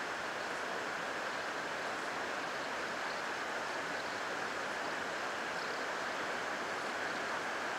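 Steady, even hiss-like background noise with no distinct sounds in it.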